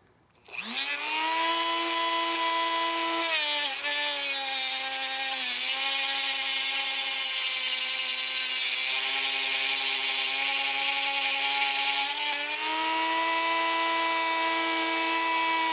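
Handheld rotary tool with a 3D-printed tungsten grinder attachment spinning up about half a second in, then running with a steady whine. From about three to twelve seconds a TIG tungsten electrode is held against the spinning disc: a hissing grind joins in and the motor's pitch sags under the load. The pitch rises back when the electrode is pulled out.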